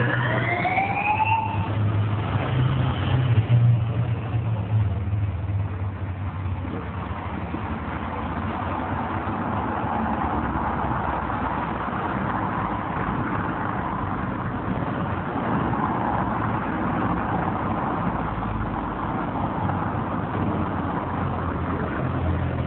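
Motor vehicles passing on the road, with an engine revving up near the start and the loudest pass about three seconds in. A steady rushing noise follows.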